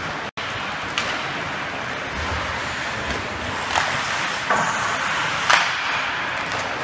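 Ice hockey play in a rink: steady arena noise with sharp clacks of sticks and puck about one, four, four and a half and five and a half seconds in, the last the loudest. The sound drops out for an instant about a third of a second in.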